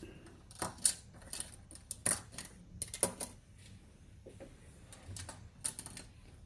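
Irregular clicks and taps of a small paintbrush against a ceramic palette dish while ochre pigment is mixed into ink.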